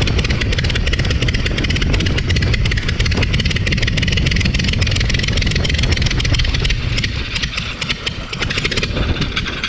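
Verner 3V three-cylinder radial aircraft engine running steadily with its propeller, held at the RPM called the worst of the shake zone. About seven seconds in it starts to falter and die away unevenly as it runs out of fuel.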